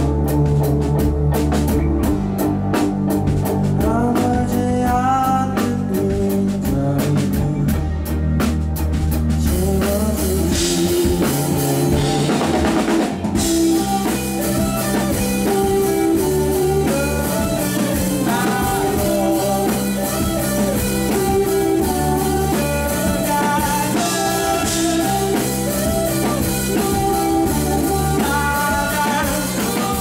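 Live rock band playing: electric guitars, electric bass and drum kit, with singing. The low end drops away for a few seconds about ten seconds in, under a cymbal wash, before the full band comes back in.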